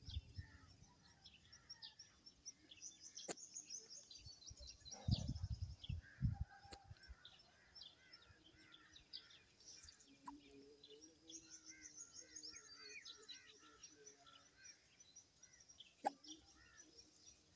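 Faint chirping of small birds, many short high calls overlapping, with a few low thumps about five seconds in.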